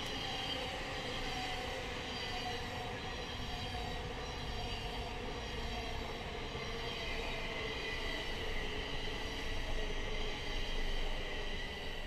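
A train running along the line: a steady low rumble with several steady high tones over it, getting a little louder near the end.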